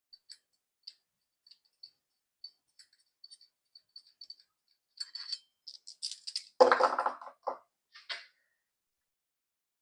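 Small metal parts being handled: light scattered clicks and ticks, then a busier clatter and one louder metallic clank followed by two smaller knocks, as the flexplate and its bolts are fiddled into line.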